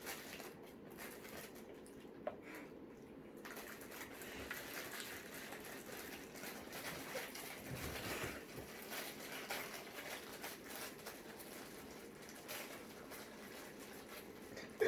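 Faint chewing and mouth noises from someone eating a toaster pastry: soft, uneven crackle with a few small clicks, a little louder after the first few seconds.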